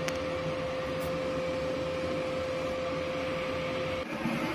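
Steady machine hum with one constant tone over a hiss; it cuts off abruptly about four seconds in.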